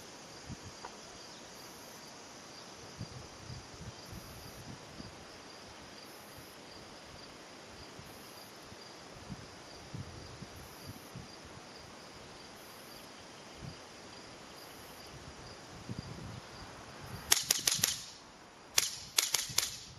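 FX Revolution .22 semi-automatic PCP air rifle firing in two quick strings of several shots, sharp cracks fired in rapid succession near the end. Faint insect chirring runs underneath.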